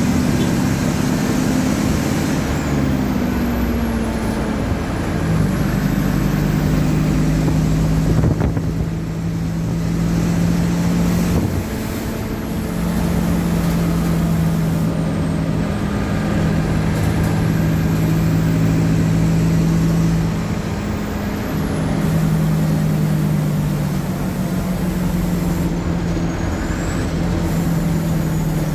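Mercedes-Benz OF-1722M bus's front-mounted diesel engine running under load. The engine note holds steady, breaks off and picks up again at a new pitch several times, as it would when working through the gears.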